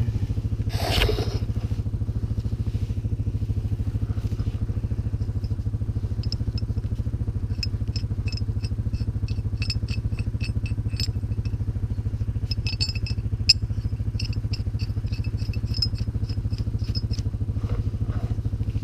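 CFMOTO 500 ATV's single-cylinder engine running steadily at idle. A brief scrape about a second in, and a run of light metallic clicks in the middle.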